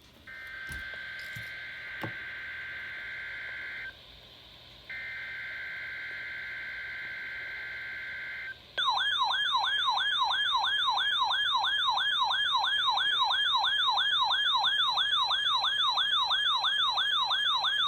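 NOAA Weather Radio SAME header: two long bursts of the two-tone digital data squawk, each about three and a half seconds. About nine seconds in, a weather radio's loud warbling alarm starts and keeps going, rising and falling about three times a second.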